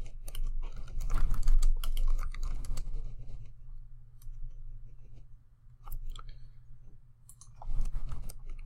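Typing on a computer keyboard: a quick run of keystrokes for the first three seconds or so, then a few scattered key presses and clicks, with another short cluster near the end.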